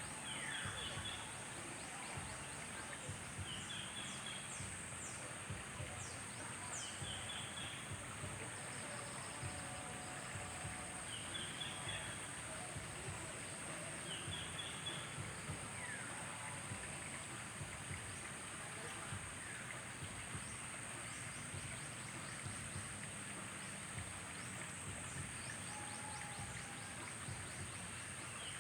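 Outdoor nature ambience: birds chirp every few seconds in short quick runs of notes, with a few falling whistles, over a steady high-pitched hum and a soft even hiss.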